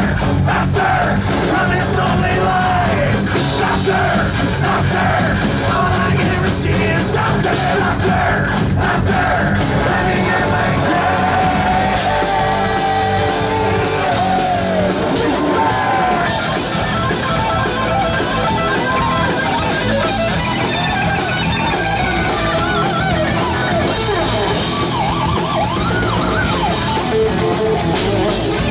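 Live heavy metal band playing loud: distorted electric guitars, bass and drums, with shouted vocals.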